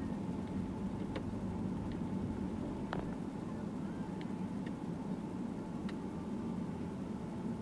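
Steady low rumble of a car's engine and tyres heard from inside the cabin while driving, with a few faint ticks.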